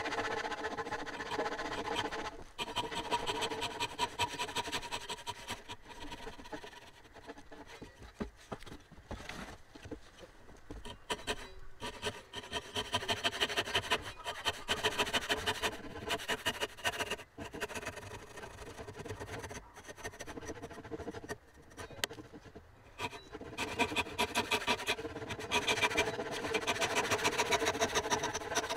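Japanese hand saw cutting through softwood timber in steady back-and-forth strokes, the rasping coming in several runs with lighter stretches between.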